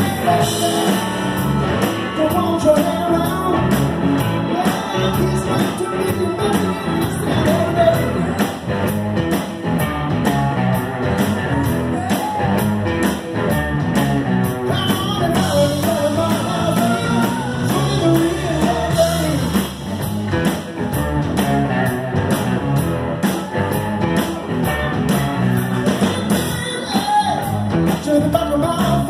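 Live rock music through a PA: a man singing while playing electric guitar, over a steady beat.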